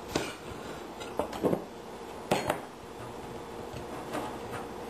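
Scattered sharp clinks and scrapes of a metal spoon against a frying pan, then a glass jar being picked up and its lid handled near the end.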